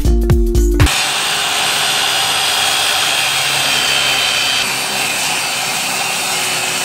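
Beat-driven background music for the first second, then a handheld electric circular saw cutting through an MDF sheet: a loud, steady, high-pitched whine and hiss from the blade in the board.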